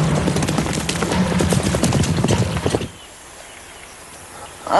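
A horse galloping, rapid hoofbeats that stop abruptly about three seconds in, leaving a quiet outdoor background.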